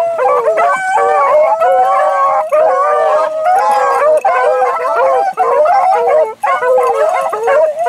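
A pack of rabbit beagles baying together, several hound voices overlapping with hardly a break: the hounds in full cry running a rabbit's track.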